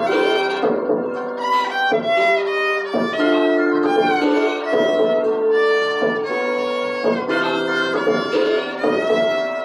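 Bowed violin playing a slow melody of long held notes, with lower notes held underneath.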